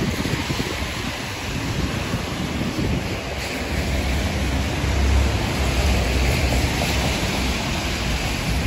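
Steady rain on wet city pavement, mixed with the hiss of traffic on wet streets and a low wind rumble on the microphone that grows stronger about halfway through.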